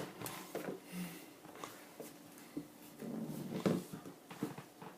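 Faint scattered clicks and knocks of a pet dog moving about in a small room, with a short louder sound about three seconds in.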